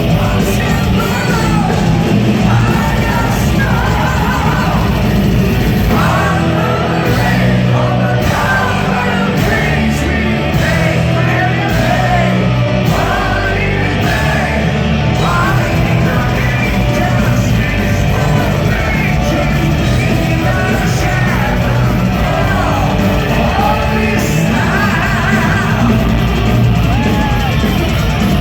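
Symphonic power metal band playing live, with a lead singer over dense, loud band accompaniment.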